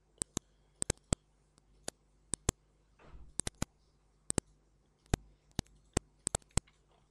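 Computer mouse button clicking: about twenty sharp clicks, many in quick pairs, with a brief soft rustle about three seconds in.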